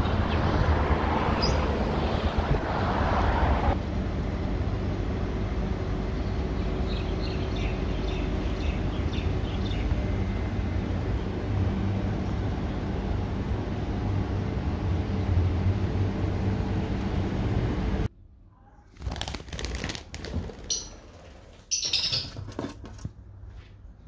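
Steady outdoor background of wind and distant traffic, then an abrupt drop to a quiet room about three-quarters of the way through, with a few short high chirps and handling rustles near the end.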